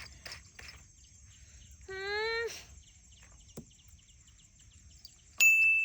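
A single short meow-like call about two seconds in, its pitch rising and then dropping. Light clicks and ticks follow, then near the end a sudden loud, high, steady ding-like tone.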